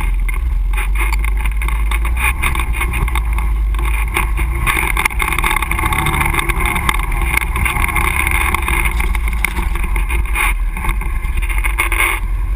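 Can-Am ATV engine running as the quad drives over a rough, muddy trail, with frequent knocks and rattles from the jolting machine. The engine note grows louder about five seconds in.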